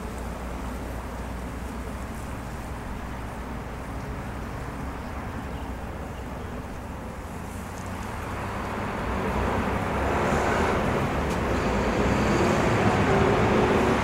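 Steady outdoor background noise of distant road traffic, getting louder about two thirds of the way through.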